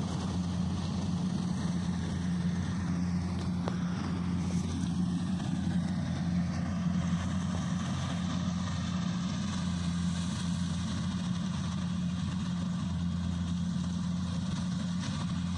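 Kubota D70 combine harvester's diesel engine running steadily at constant speed, an even low drone with no changes.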